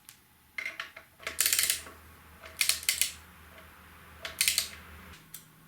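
Three short bursts of rapid metallic clicking, with a faint low hum underneath that stops about five seconds in.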